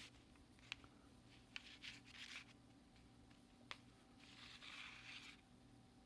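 Near silence with a few faint clicks and two brief soft rustles, the longer one lasting about a second past the middle.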